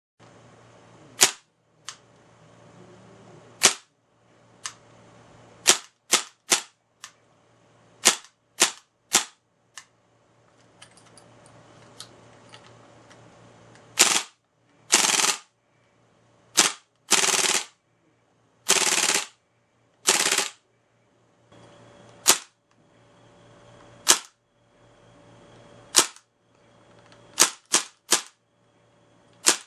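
Maruzen Ingram M11 gas blowback airsoft SMG firing: sharp single shots, each a crack with the bolt slamming back, with a run of short full-auto bursts in the middle.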